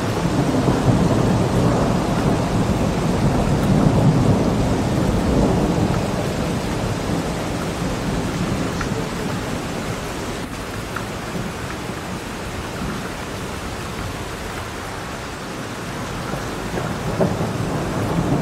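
Heavy rain pouring down onto floodwater: a steady rushing noise, loudest about four seconds in and easing slightly later.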